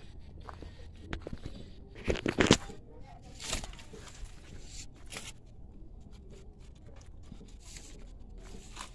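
Rustling and crackling of leaves and plant stems, with a loud cluster of sharp crackles about two seconds in and a few single ones after, over a low steady rumble.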